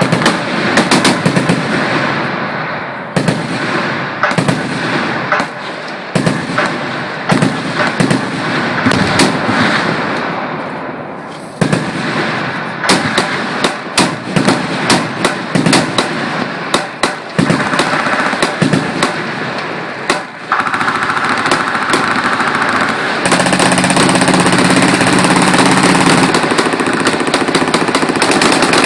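Machine guns firing at once down a range: overlapping bursts and crackling shots, merging about two-thirds of the way in into continuous rapid fire that grows louder near the end.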